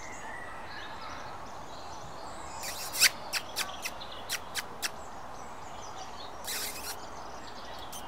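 Outdoor background with faint bird chirps, broken about three seconds in by a quick run of six or seven sharp clicks over two seconds, then a short hissing rustle near the end.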